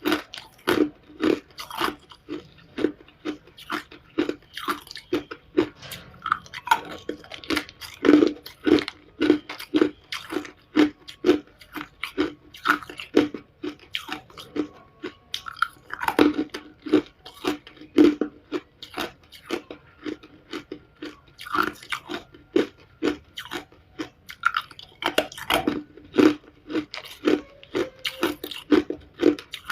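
Someone chewing hard ice cubes close to the microphone: a steady run of loud, sharp crunches, about two a second.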